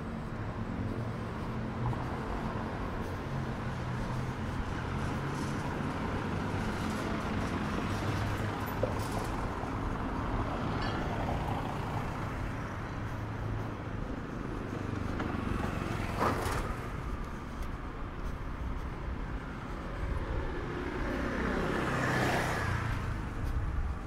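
Street traffic: a vehicle engine idling steadily for about the first half, then vehicles passing close by, the loudest one near the end.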